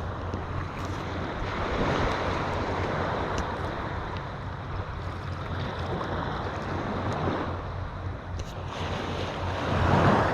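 Small surf waves washing onto the beach, swelling about two seconds in and again near the end, with wind rumbling on the microphone.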